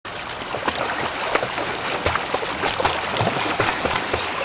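Swimming-pool water splashing and lapping as swimmers move through it, a steady wash broken by many small quick splashes.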